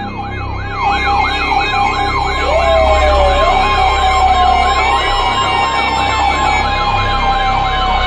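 Several NOAA weather radios alarming at once for a Severe Thunderstorm Warning: a steady warning tone with a siren-like alarm over it that warbles up and down about three times a second.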